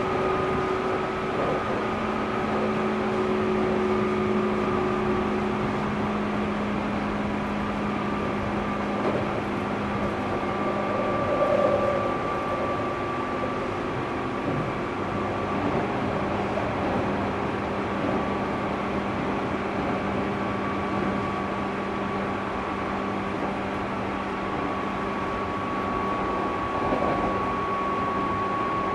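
JR 205-series electric commuter train running at speed, heard from inside a motor car fitted with MT61 externally fanned traction motors. Steady rail and wheel noise is joined by a steady whine from the motors and gears, whose pitch sinks slightly. There is a brief louder knock about twelve seconds in.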